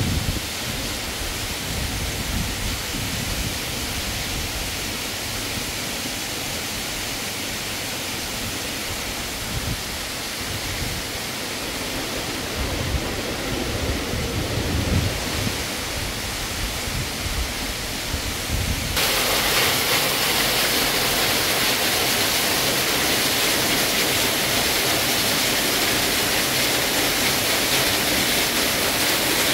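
Steady rushing outdoor noise with uneven low rumbles. About two-thirds of the way through it switches abruptly to a louder, brighter, even hiss.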